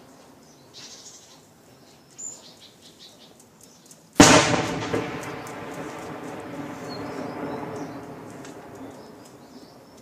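A single heavy explosion, an artillery blast, hits suddenly about four seconds in, and its boom rolls and echoes away over the next several seconds. Birds chirp faintly before and after it.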